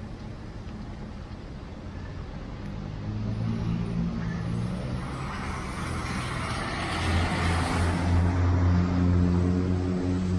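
Road traffic: a motor vehicle passes close by, its rush of noise swelling to a peak about eight seconds in, over the steady low hum of running engines.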